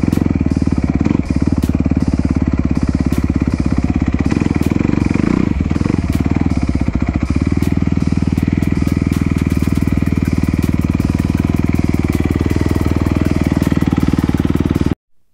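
2019 Kawasaki KX250 single-cylinder four-stroke dirt bike engine running at a fairly steady pitch. The sound cuts off suddenly near the end.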